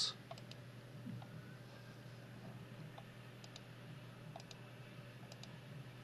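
Several faint clicks, some in quick pairs, over a low steady hum.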